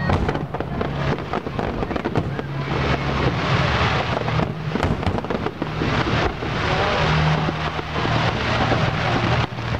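Aerial fireworks display: a dense, continuous barrage of shells bursting and crackling, with ground-fired mines and comets, over a pyromusical soundtrack whose low held notes change every second or so.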